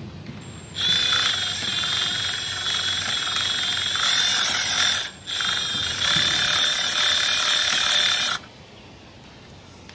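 Small handheld power tool running in two long runs with a short stop about five seconds in, a steady high whine over a coarse buzz, cutting off suddenly near the end.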